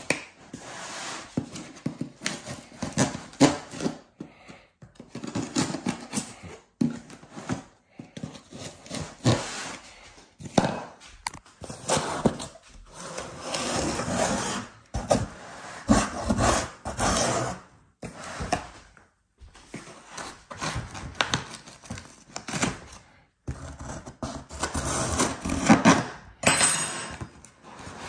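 A knife slitting and tearing the packing tape along the seams of a large corrugated cardboard box, in irregular scraping strokes with short pauses, with cardboard flaps rubbing.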